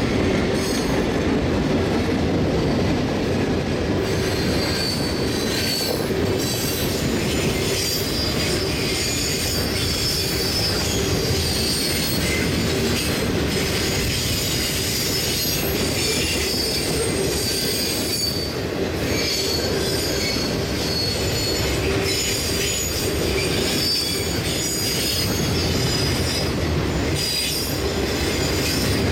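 Freight cars of a manifest train rolling past close by: a steady rumble of steel wheels on rail, with high-pitched wheel squeal coming in about four seconds in and continuing.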